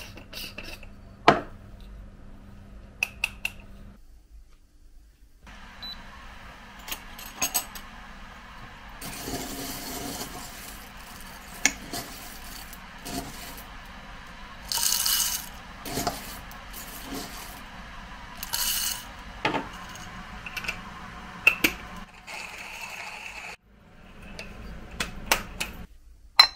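Coffee beans rattling into a metal hand coffee grinder standing on a scale, among clinks and sharp knocks of cups, jars and kitchenware being handled; the loudest knock comes about a second in.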